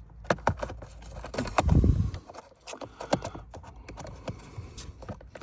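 Irregular clicks and knocks of hard plastic parts as the blower motor is worked loose from under the dashboard. There is a heavier low thud about one and a half to two seconds in.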